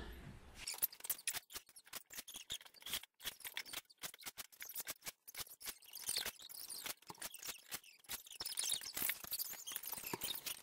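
Faint, irregular light clicks and rustling as people move about inside open plywood locker boxes.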